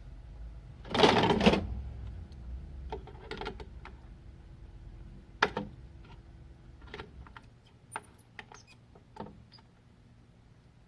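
Scattered small clicks and taps of tools working on a TV power-supply board while a diode is being desoldered and removed, with a short noisy burst about a second in and a faint low hum under the first part.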